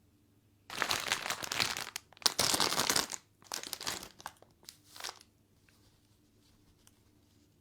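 Plastic toy packaging being handled and crinkled during unboxing: two long spells of loud crinkling in the first three seconds, then a few shorter rustles that die away into faint ticks.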